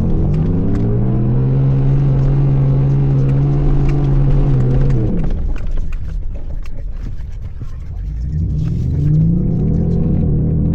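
Ford F-150's 5.0 V8 engine through a Borla cat-back exhaust. It is held at a steady rev for about five seconds, then drops away, and revs up and falls back once more near the end.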